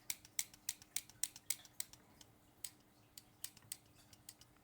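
Leatherman Wave Plus multitool's pliers being worked open and shut, a run of light metal clicks about three or four a second that thins out after about two seconds, as fresh oil is worked into the pivot.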